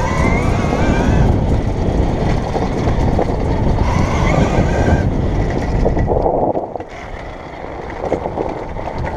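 Electric motor of a KTM Freeride E enduro bike whining as it accelerates, its pitch rising over the first second or so, over heavy wind noise and rumbling from riding over rough dirt. The sound eases off about seven seconds in.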